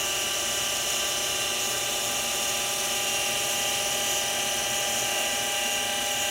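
Mini milling machine running steadily as its cutter takes a final light facing pass, the last thousandth of an inch, on a small block.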